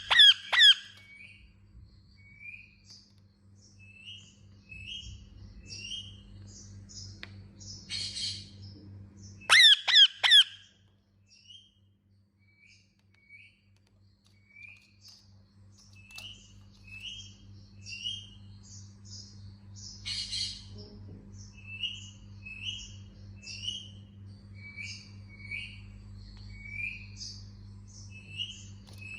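Indian ringneck parakeet chirping in a steady series of short, repeated notes, broken twice by a burst of loud, harsh screeches: once at the start and again about ten seconds in.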